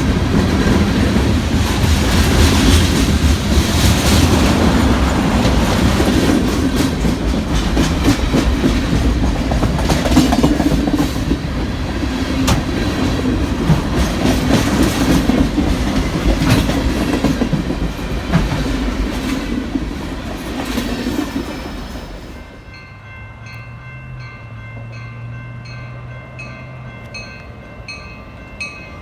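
A train passing close, its cars rumbling and clacking over the rail joints. About two thirds of the way in, the sound cuts to a quieter scene with a regular, repeating high ringing and a low hum.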